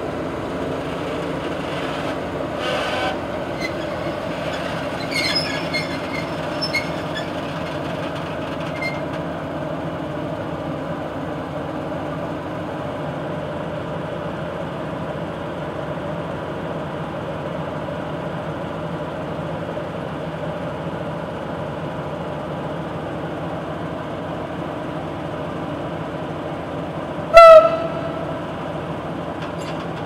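SM42 diesel shunting locomotive's a8C22 diesel engine running steadily as the locomotive moves slowly. A few short squeaks and clicks come between about five and nine seconds in. One short, loud horn blast sounds near the end.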